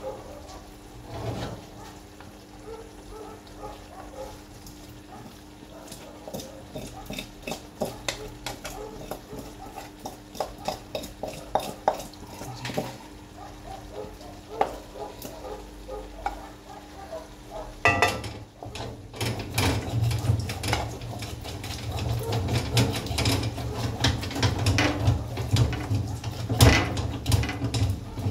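A metal spoon clinking and scraping in an aluminium pot, then, about two-thirds of the way in, a sudden loud sizzling as food fries in the pot, with more stirring.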